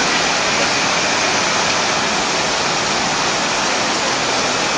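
Steady, even rush of fast-flowing floodwater.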